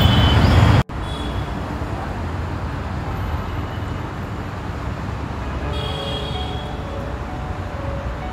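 Steady street traffic noise. A louder rush of it cuts off abruptly just under a second in, and the rest stays even, with a few faint tones over it.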